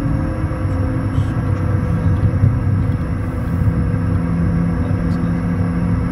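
Bombardier Challenger 350 heard from the cockpit during landing rollout: a steady rumble of the wheels on the runway under the whine of its turbofan engines. The engine tones settle slightly lower about a second in as the engines spool down.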